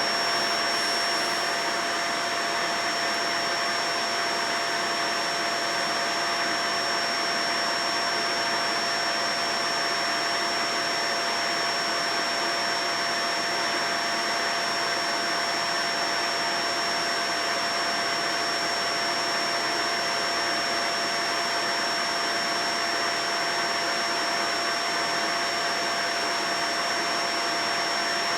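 Vacuum cleaner running steadily: an even rushing of air with a constant motor whine made of two steady tones, one middling and one high.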